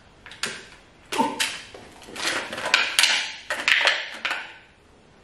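A plastic bag crinkling and rustling as an Italian greyhound picks it up from a hard floor, mixed with the light tapping of its claws as it moves about. The sound comes as a string of short, sharp clicks and crackles in two or three clusters, and dies away shortly before the end.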